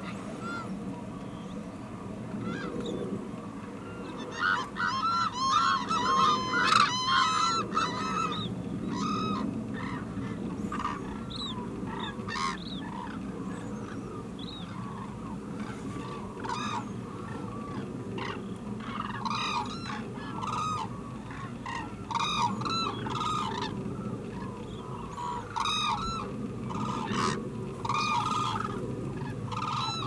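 A large flock of cranes calling, many short pitched calls overlapping, thickest about four to eight seconds in and again through the latter half, over a steady low rumble.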